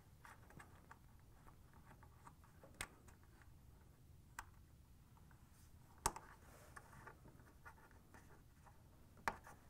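Faint handling noise of a ground wire being pushed through plastic hooks and clips on a washer's plastic outer tub, with scattered small clicks; four sharper clicks stand out, the loudest about six seconds in.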